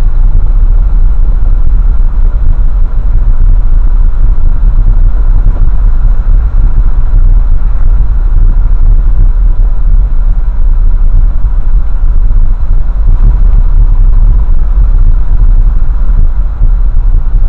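Loud, steady low rumble inside a moving pickup truck's cab at road speed: engine, tyre and wind noise running continuously.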